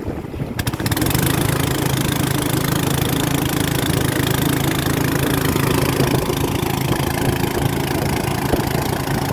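A boat engine running steadily, with a constant hiss of wind or water over it; it grows louder and fuller less than a second in, then holds even.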